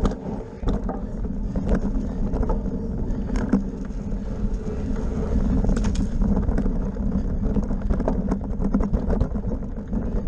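Bicycle riding fast over rough grass: a steady rumble of wind buffeting the microphone and tyre noise, with frequent irregular rattles and knocks as the bike jolts over bumps.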